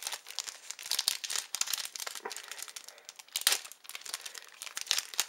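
Plastic-foil wrapper of a Yu-Gi-Oh Duelist Pack booster crinkling as it is handled and torn open, a rapid, irregular crackle.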